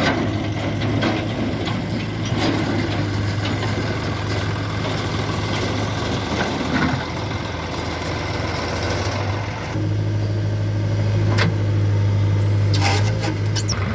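Heavy diesel engine running steadily, a little louder from about ten seconds in, with scattered clanks and knocks.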